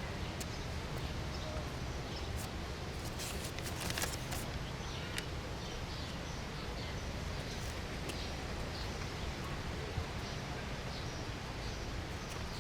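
Steady background ambience noise with a few faint scattered clicks and ticks, one a little stronger about ten seconds in.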